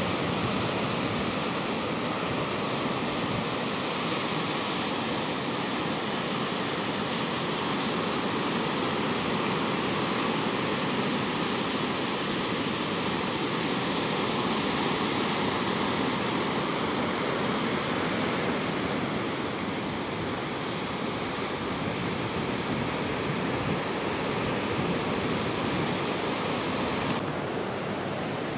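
Surf breaking on a sandy beach, a steady, even rushing roar mixed with wind; the sound changes abruptly near the end.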